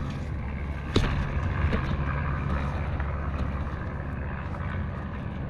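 Steady low rumble of handling noise on a handheld camera's microphone, with rustling over dry leaf litter and one sharp click about a second in.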